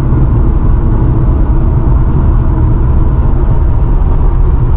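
Car driving along the road: a steady, loud, low rumble of road and engine noise.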